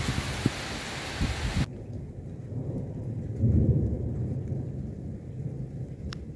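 Heavy thunderstorm downpour hissing, breaking off abruptly about a second and a half in. After that, lighter rain with a low rumble of thunder that swells around three and a half seconds in and then fades.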